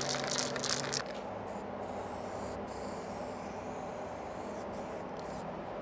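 Aerosol can of Würth zinc-rich primer spraying: a few short spurts, then a longer steady hiss broken by brief pauses as the primer is laid onto bare metal.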